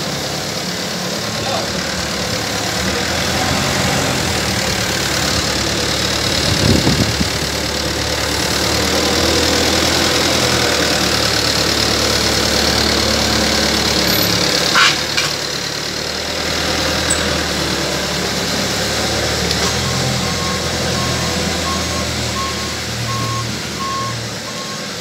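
Delivery truck's engine running steadily, with a couple of short knocks. In the last few seconds its reversing beeper sounds a regular series of beeps.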